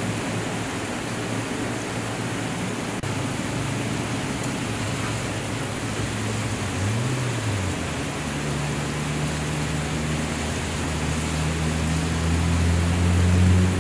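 Heavy rain pouring in a steady hiss, with a low rumble underneath that grows louder near the end.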